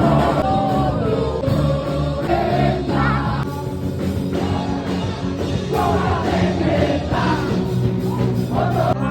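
Music with a singing voice over steady low notes.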